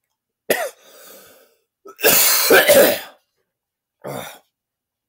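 A man coughing and clearing his throat: a short cough about half a second in, a longer, harsher one with a wavering voiced rasp around two seconds in, and another short cough near the end.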